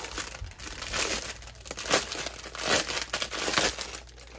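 Clear plastic packaging bag stuffed with small plastic bags of diamond-painting drills crinkling as hands handle it and work it open, in irregular crackles with several louder swells.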